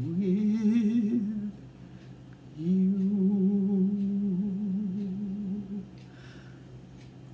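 A voice humming two long, wavering notes, the first about a second and a half long and the second about three seconds, with a short gap between them, over a low steady hum.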